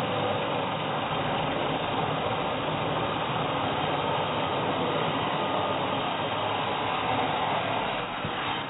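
Angle grinder cutting through steel all-thread rod, a steady grinding noise that eases off slightly near the end.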